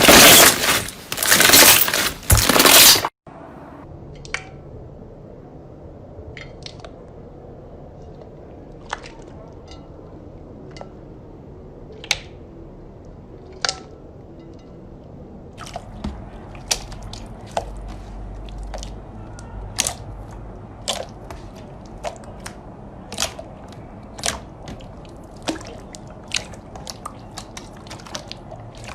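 Slime being squeezed and pressed: loud crunching for about three seconds that cuts off abruptly, then a quieter stretch of scattered squishy clicks and pops that come more often from about halfway on.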